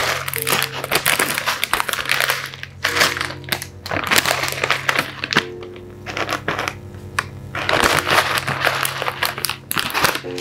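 Background music, over crinkling and rustling of a plastic bag of ink caps as a cap is taken out and set down.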